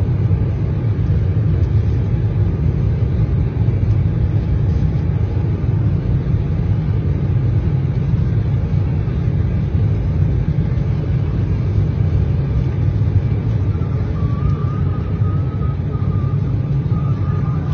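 Steady, loud rumble inside an airliner cabin as the jet lifts off at takeoff power and climbs into heavy rain and cloud, with no break or impact.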